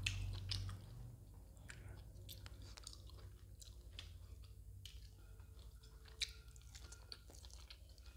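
Close-miked chewing of roti soaked in fish curry: soft, wet mouth clicks and smacks, with one sharper click about six seconds in.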